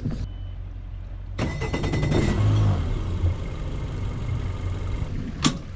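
Boat engine running steadily, picking up and getting louder about a second and a half in.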